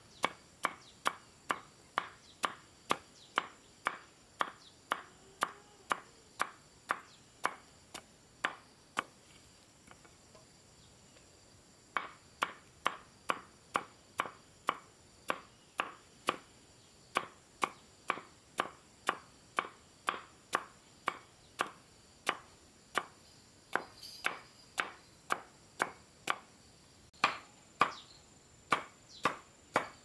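Repeated sharp knocks at a steady pace, about two a second, like strokes of a blade or tool on a hard surface. They stop for about two seconds near ten seconds in, then resume.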